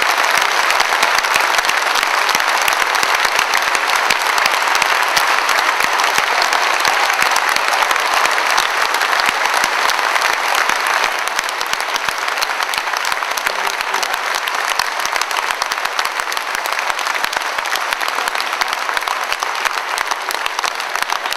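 A large audience applauding, a dense steady clatter of many hands clapping that eases slightly in the second half.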